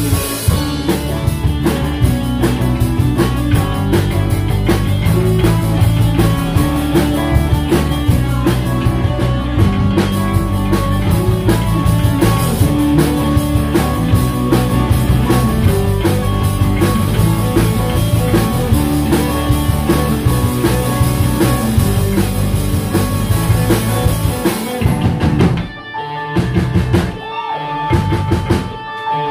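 Live rock band playing: drum kit, bass guitar, keyboards and acoustic-electric guitar together. About 25 seconds in the drums drop out, leaving sparser held notes.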